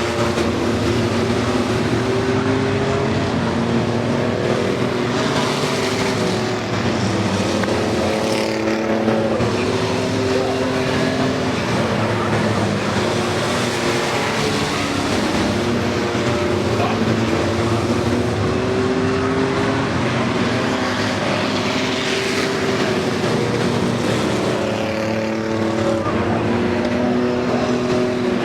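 Pack of racing pickup trucks running together around a short oval track. Several engines run at once at racing revs, their pitches sliding up and down as they pass and lift.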